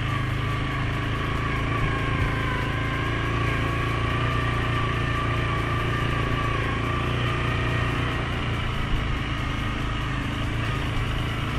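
Suzuki King Quad 750 ATV's single-cylinder engine running at a steady speed, with a high whine that wavers slightly in pitch over a steady low hum.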